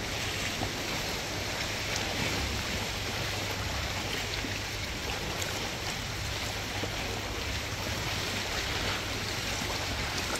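Steady splashing and sloshing of sea water close around a stand-up paddleboard.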